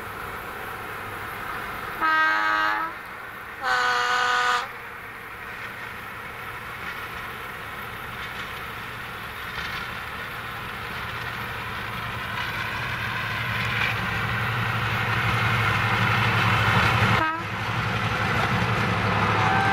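Diesel locomotive sounding its two-tone horn twice, a low note then a high note, each about a second long. Its engine then grows steadily louder as it approaches.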